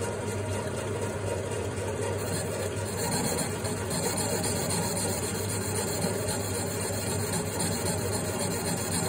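Metal lathe running steadily with a low hum, spinning a finned Simson moped cylinder while its base face is turned flat.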